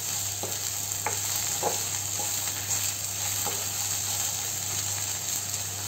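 Sliced okra frying in oil in a nonstick kadhai, sizzling steadily, as a wooden spatula stirs it with a few short scrapes and knocks against the pan in the first few seconds. A low steady hum runs underneath.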